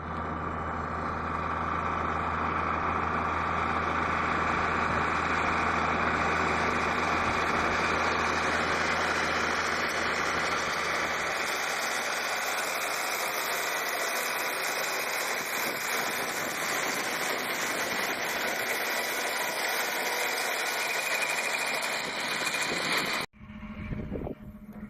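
Farm tractor engine running steadily with a grass mower working. The low engine hum fades about halfway through, leaving a steady whirring hiss, and the sound cuts off abruptly near the end.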